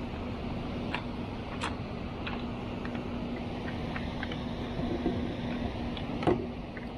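Steady rush of water from a dam spillway and river, with a steady low hum under it and a few scattered light clicks, the loudest about six seconds in.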